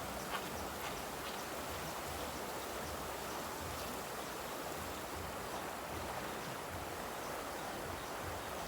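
Steady wash of water noise, like rain or flowing water, with a few faint drip-like ticks in the first couple of seconds.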